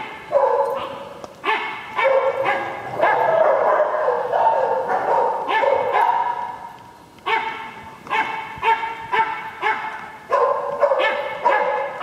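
Dogs barking repeatedly in quick bursts, with a longer drawn-out stretch of calling in the middle before the short barks resume.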